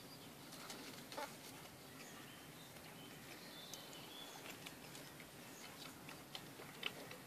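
Faint scuffling and a few soft clicks as Alaskan Malamute puppies play and tussle with adult malamutes on a plastic patio mat, with a few faint high chirps about three seconds in.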